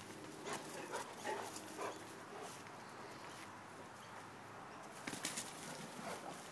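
Young mastiff-cross dogs playing, with a few faint short vocal noises in the first couple of seconds and a quick cluster of clicks and scuffles about five seconds in.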